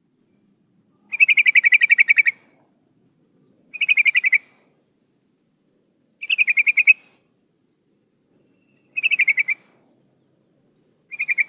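Yellow-vented bulbul (trucuk) calling: five short bursts of quick, evenly pulsed notes, one about every two and a half seconds. It is billed as a female calling to a male, the kind of recording played as a lure to bring males in.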